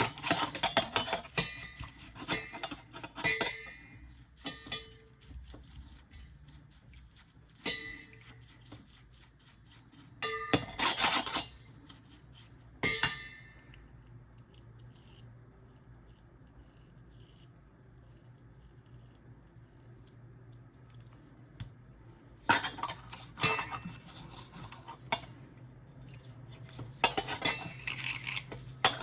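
Small metal parts and tools clicking, clinking and scraping as a washing-machine door lock is worked on by hand, in irregular bursts with a quieter lull in the middle.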